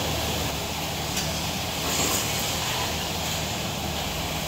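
Steady background noise of passing road traffic, a constant rumble and hiss.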